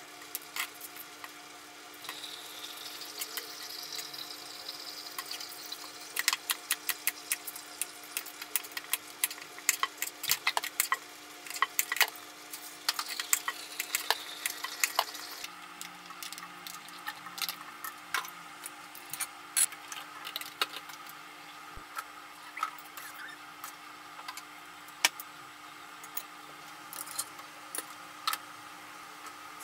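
Kitchen knife cutting pumpkin on a plastic cutting board: sharp taps in quick runs, over the hiss of running water. About halfway through the water sound stops and scattered knife taps go on.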